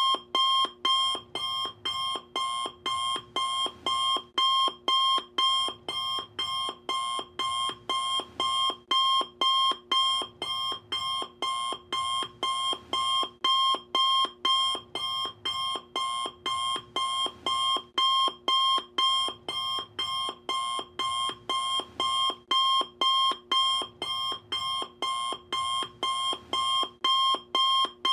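Alarm clock alarm going off: a steady, evenly spaced run of short high beeps, about two a second, all at the same pitch.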